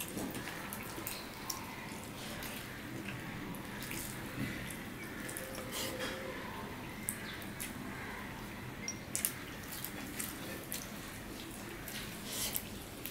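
Eating by hand: wet squishing of fingers mixing rice with curry on plates, with chewing and lip smacks and many short, scattered clicks.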